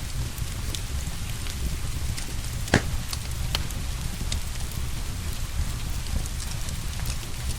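Fireplace fire crackling with scattered small pops and one louder sharp pop about three seconds in, over steady rain and a low rumble.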